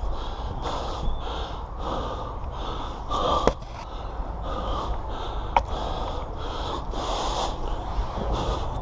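A person breathing hard, quick rhythmic panting breaths about two a second, with a sharp click about three and a half seconds in and another about two seconds later.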